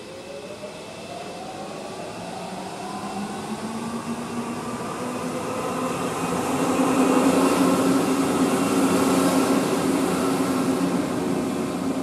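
Lausanne M2 rubber-tyred metro train running out of the tunnel and passing. Its electric motor whine rises in pitch as it picks up speed, and it grows louder to a peak about seven to nine seconds in as it goes by.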